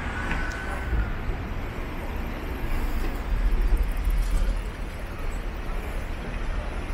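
Steady ambient rumble of a busy subway station or the street around it, with a brief high tone at the start. A low rumble swells about three seconds in and fades a second and a half later.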